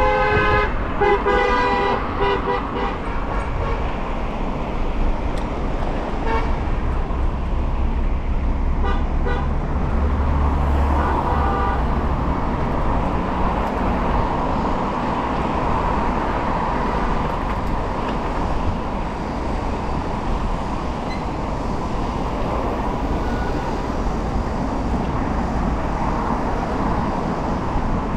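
A vehicle horn honks twice in quick succession at the start, followed by steady city road traffic noise heard from a moving bicycle.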